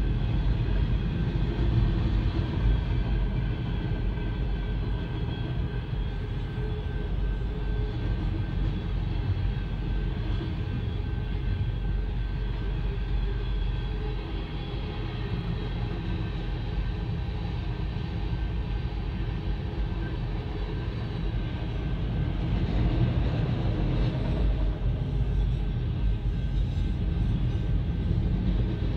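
Freight train of tank cars and autorack cars rolling past a level crossing, its wheels and cars making a steady rumble. A few faint steady high tones sit over the rumble.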